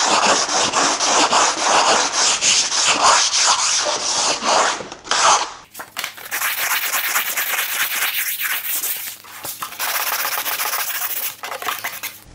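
Hand sanding block with 120-grit paper rubbed back and forth along the edge of a laminate sheet, in quick rhythmic strokes, to take a little more off the edge. There is a short break about halfway through.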